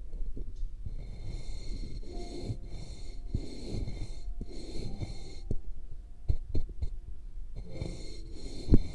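Close-up squishing and rubbing of a soft, sticky material pressed and kneaded over a binaural microphone's ear, a dense crackly, squelchy texture with a few sharp thumps near the end.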